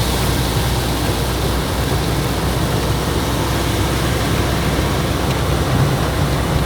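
Ford 1119 truck's diesel engine running steadily under the constant hiss of heavy rain and wet road noise, heard from inside the cab.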